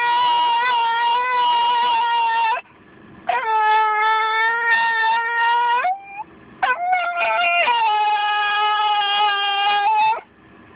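White miniature schnauzer howling ('singing') in long, wavering, held notes. There are three long howls with short breaks between them, the first already under way at the start.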